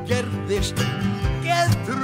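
A live band plays a song, with a man singing lead into the microphone over guitars.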